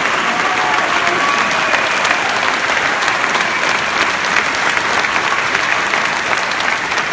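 Crowd applauding: a dense, steady clatter of many hands clapping, easing off slightly near the end.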